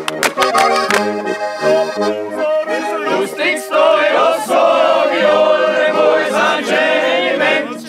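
Traditional Alpine folk music led by an accordion, with rhythmic bass notes, and voices singing along from about three seconds in.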